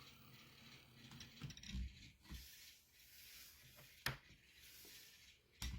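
Near silence with a few faint, short clicks and light rubbing, the sharpest two about four seconds in and near the end.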